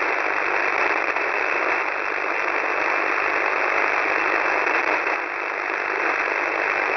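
Shortwave radio noise from a KiwiSDR receiver tuned to an HF military voice channel: a steady hiss confined to the receiver's narrow voice passband, with no voice or tones, between spoken transmissions.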